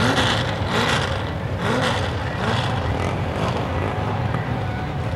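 Lifted Chevrolet pickup's engine running at the start line, revved in short rising blips about once a second as the driver waits to launch.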